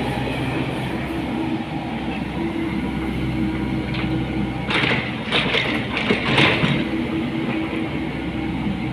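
Komatsu PC78 excavator running, its diesel engine holding a steady drone. About five seconds in there is a run of sharper knocks and hissing that lasts a second or two.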